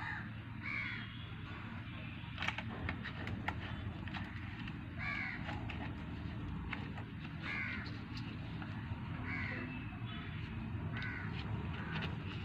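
Crows cawing, one short call every second or two, over a steady low rumble, with a few sharp clicks.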